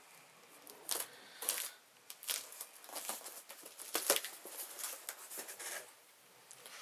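Packing tape being ripped off a cardboard box and the flaps pulled open: a series of short tearing rips and cardboard scrapes, the sharpest about four seconds in.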